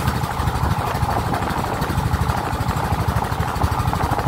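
Engine of a motorised wooden river boat running steadily under way, with a fast even beat, over the rush of water along the hull.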